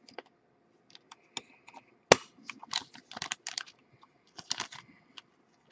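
Irregular bursts of light clicks and taps, with one sharper click about two seconds in.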